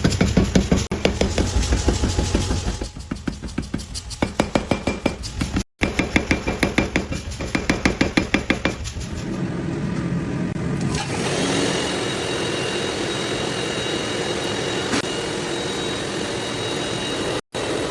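Rapid, evenly spaced blows of a mechanical power hammer on steel, about five a second, cut off once by an edit. From about eleven seconds in, a steady machine whir with a thin high whine takes over.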